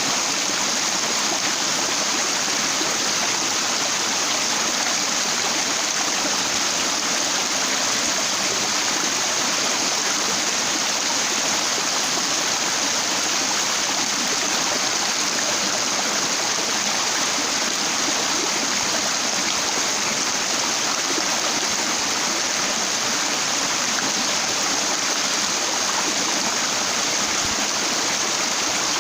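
Stream water rushing and splashing over flat rocks, a steady, even rush with no change.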